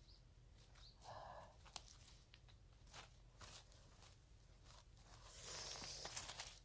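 Faint scraping and crunching of gloved hands digging in stony soil among dry grass, with scattered small clicks and a longer scrape near the end.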